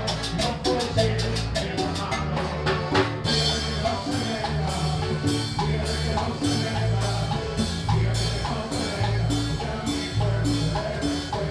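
Live band playing Salvadoran popular music: electric keyboard, congas, drum kit and electric guitars over a steady bass line, in an even dance rhythm. The percussion changes about three seconds in, to a fuller, steady beat.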